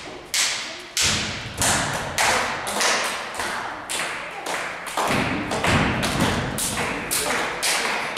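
A steady run of sharp thuds, about two a second, each leaving a short echo.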